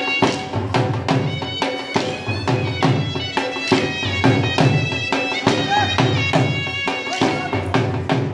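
Dhol drum beating a steady rhythm, about two strokes a second, under a wind instrument playing a traditional folk melody over steady drone notes.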